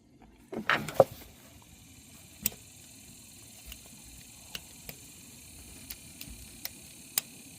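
Hands working under a car at a starter motor's wiring connector: a couple of loud knocks about a second in, then scattered light clicks.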